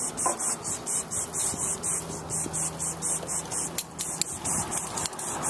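Lawn sprinkler spraying water, a hiss that pulses evenly about four times a second.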